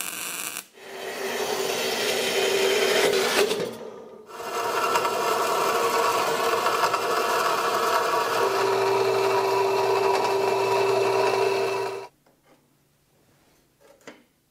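A power tool running under load, a steady motor whine over a harsh abrasive rasp, in two runs of about three and eight seconds, then stopping.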